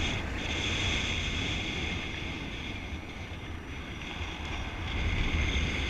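Airflow buffeting the camera microphone of a paraglider in flight: a steady low wind rumble with a high hiss over it, growing louder near the end.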